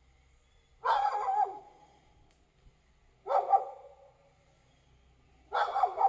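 A dog barking: three single barks spaced about two and a half seconds apart.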